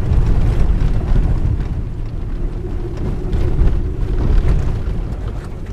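SUV driving on a dirt road, heard inside the cabin: a loud, steady low rumble of the tyres over the rough surface, with scattered small ticks of grit and gravel.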